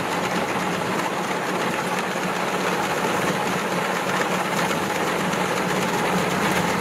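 Rice combine harvester's diesel engine running steadily while it cuts rice, a continuous even engine hum with no breaks.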